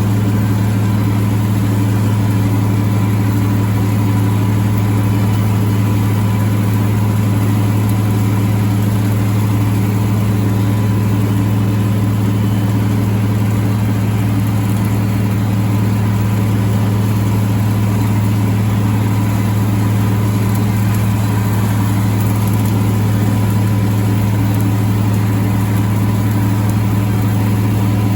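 Tractor engine running at a steady speed while pulling a bush hog rotary mower, giving a constant low drone that does not change.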